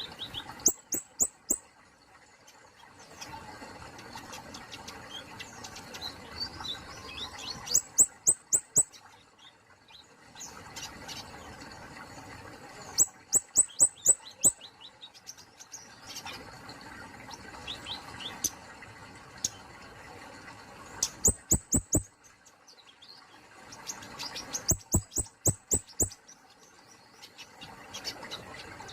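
Kemade polos songbird calling: repeated bursts of rapid, sharp, clicking notes, with softer twittering between them.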